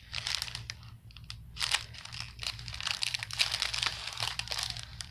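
Small plastic bags of round diamond-painting drills crinkling and rustling as they are handled, in repeated bursts with small clicks, over a steady low hum.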